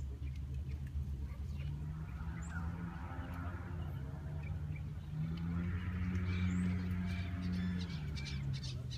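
Voices chanting a slow liturgical hymn in long held notes, stepping up to a louder, higher note about five seconds in. A few faint bird chirps come through above it.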